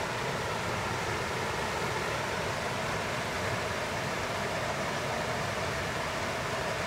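Water pouring over a concrete weir: a steady, unbroken rush of falling water.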